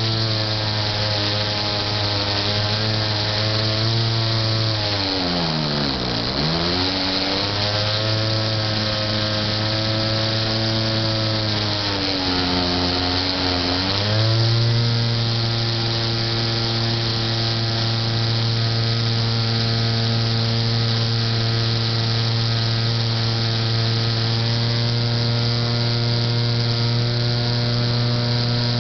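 Titan J3 radio-controlled model airplane's motor and propeller, heard from on board, running with a steady drone. The pitch drops sharply and comes back up about five to seven seconds in, and dips again more briefly about twelve to fourteen seconds in, as the throttle is eased off and opened again.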